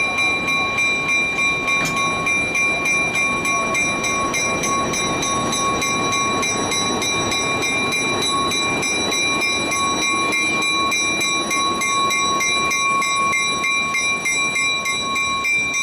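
ALCO C420 diesel-electric locomotive, with its turbocharged V12 251 engine, running as it rolls slowly past at close range. The engine sound is loud and steady, with a steady high whine and an even pulsing of about two beats a second in the first few seconds.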